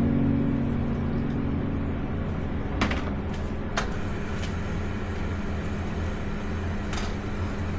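Steady low hum of a running kitchen appliance, with a few faint clicks about three and four seconds in and again near the end.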